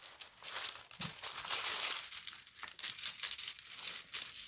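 Clear plastic protective film over a diamond painting canvas crinkling and rustling in irregular bursts as hands flatten and smooth it.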